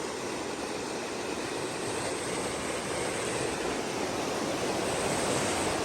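A large stream rushing, a steady sound of running water that grows slightly louder toward the end.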